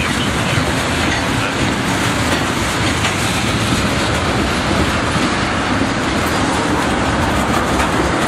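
Train cars rolling past, their wheels running on the rails in a loud, steady noise.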